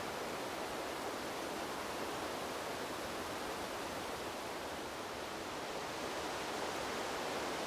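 Wind blowing steadily through trees: an even rush of moving air and leaves with no birds or other distinct sounds, swelling slightly near the end.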